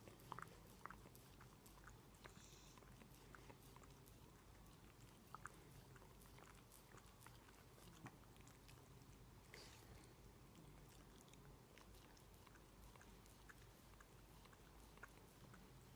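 Faint, irregular wet clicks of a Shiba Inu's tongue licking a cat's fur, over quiet room tone.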